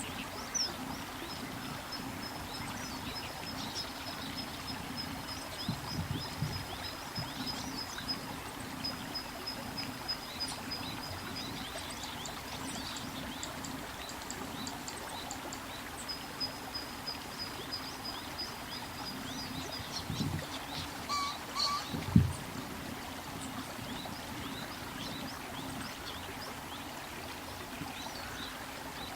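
Little ringed plover giving long runs of rapid, evenly spaced trilled notes at one high pitch, three runs in all, over a steady rush of river water. A single loud thump a little after the middle.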